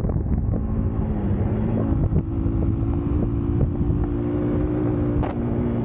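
Eagles EBA250 250cc motorcycle engine running at a steady pitch with a heavy low rumble, with scattered short knocks and some wind noise on the microphone.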